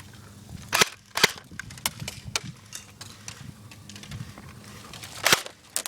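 Airsoft guns firing: sharp snapping shots, a few in the first couple of seconds, a loud one about five seconds in, then a quick run of shots right at the end.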